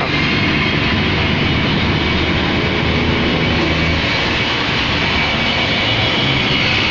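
Jet airliner's engines on a plane coming in to land: a loud, steady rush with a faint high whine.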